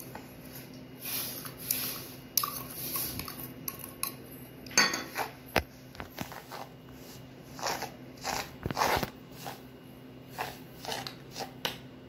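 Table salt poured from a steel bowl into a plastic tray and spread with a metal spoon: irregular scraping, rustling and clinking strokes of the spoon and grains against the tray and bowl.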